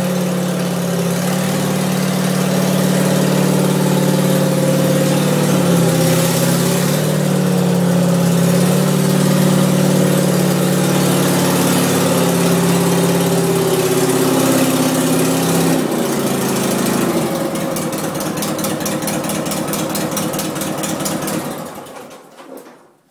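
Gravely 817 garden tractor's Onan CCKA twin-cylinder engine running steadily. About 16 seconds in it drops to a lower, pulsing idle, and it is shut off and dies away near the end.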